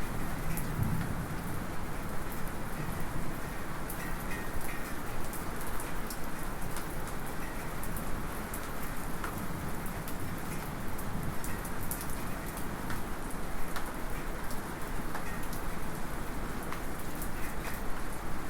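Light rain falling steadily, with scattered sharp ticks of a small metallic drip. A low thunder rumble dies away in about the first second.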